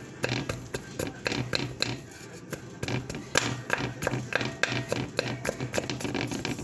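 Wooden spatula stirring crumbled plant-based ground meat in a pot: quick, irregular taps and scrapes of wood against the pot, several a second.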